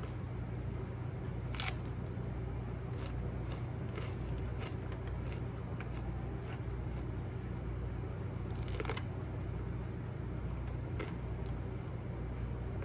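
Steady low hum with a faint even hiss, broken by scattered small clicks and crackles, the sharpest about two seconds in and again near nine seconds.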